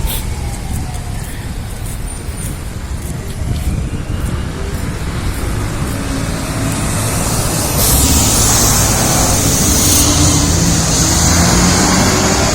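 Road traffic on a rain-soaked street: car engines running, with tyres hissing on the wet pavement, the hiss growing and jumping sharply louder about eight seconds in as a vehicle comes close.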